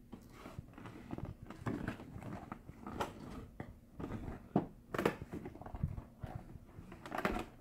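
Irregular crackling, rustling and scraping of a fashion doll's cardboard and plastic packaging being pulled and peeled away from the doll, with a few sharper clicks.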